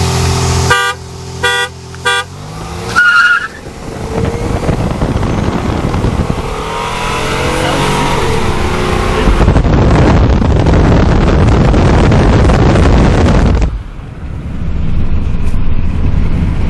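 Car horn honks three short times, then a car engine revs up and accelerates hard, rising in pitch. A loud rushing noise follows for about four seconds and cuts off suddenly.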